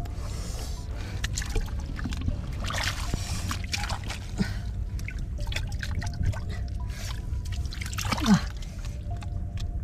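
Hands churning wet mud and muddy water in a flooded hole: irregular squelching, splashing and trickling while the digger gropes for fish. A short voice sound, falling in pitch, about eight seconds in.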